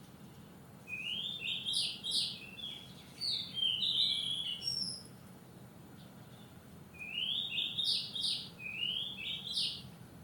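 Wild songbird singing two phrases, each a quick run of short rising whistled notes, the second phrase starting about seven seconds in.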